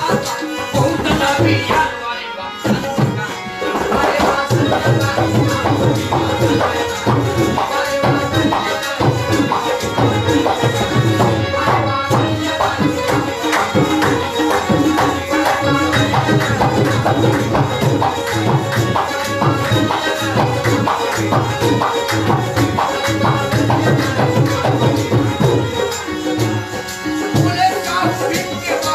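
Live Indian folk song: a man singing over harmonium and tabla, with a steady drum rhythm. A shaker or rattle adds to the rhythm.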